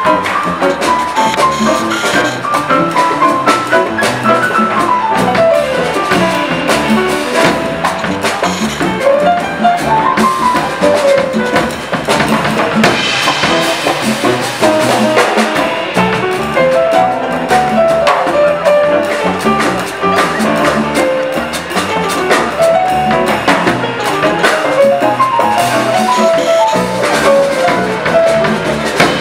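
Live jazz: a grand piano playing fast rising and falling runs over a drum kit, with the band behind it.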